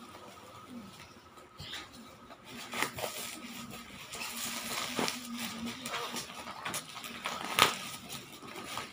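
Plastic packaging wrap rustling and crinkling as it is pulled and torn open by hand, with a few sharper crackles, the loudest near the end.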